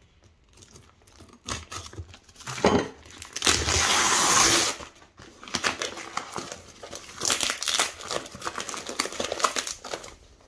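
Parcel's brown paper and plastic wrapping being torn open and crumpled by hand: one long loud rip about three and a half seconds in, then bursts of crinkling.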